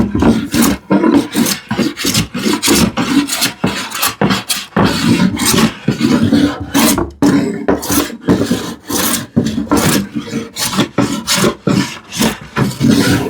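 Hand plane taking short, repeated strokes across a glued-up wooden panel, about one or two scraping passes a second. The plane lands and lifts off in small sections rather than taking end-to-end shavings, levelling the panel and removing glue lines.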